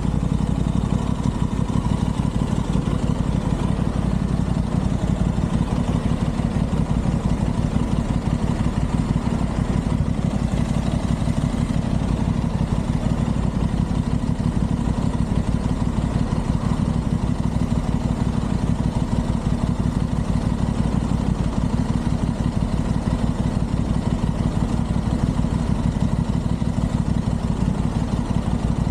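Aprilia Tuono 660's parallel-twin engine running steadily with an even, low pulsing beat and no revving.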